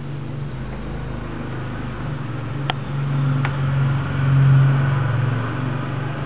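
A low, steady mechanical hum that swells to its loudest about two-thirds of the way through, with two faint clicks in the middle.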